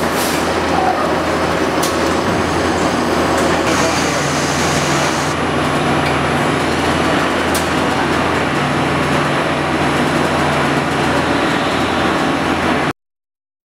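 CNC machine running in a machine shop, a steady dense noise over a low hum, the sound of the machine and its coolant at work on a steel torque-tool housing. It cuts off suddenly near the end.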